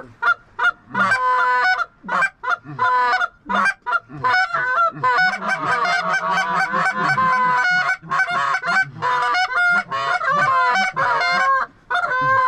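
A flock of geese honking, many short overlapping calls, growing into a dense, almost unbroken chorus from about four seconds in.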